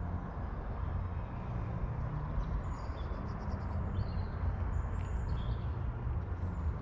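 Steady low outdoor rumble, with small birds chirping over it: several short, high calls in the middle.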